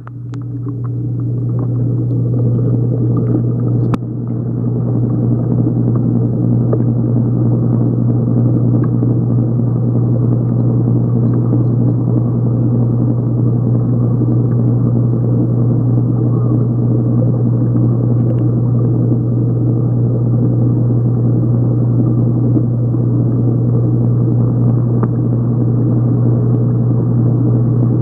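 Steady low hum and muffled rumble heard underwater through a waterproof phone case, likely the water and pump of a tank, with one sharp knock about four seconds in.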